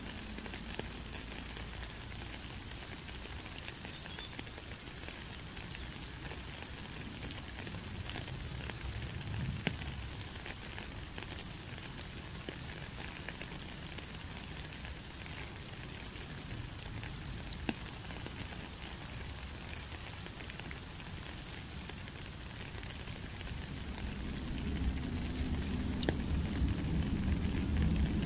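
Rain falling steadily into a puddle and onto a wet gravel path: a fine hissing patter with now and then a single louder drop. It grows somewhat louder near the end.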